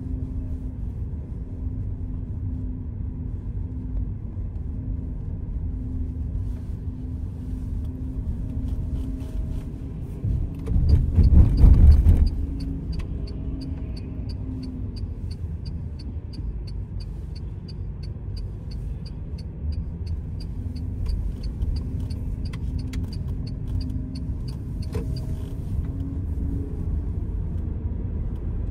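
Car running along a town road, heard from inside the cabin: a steady low rumble of engine and tyres. A louder rumble swells for about a second and a half around eleven seconds in. Then an even ticking, about three a second, runs for some thirteen seconds.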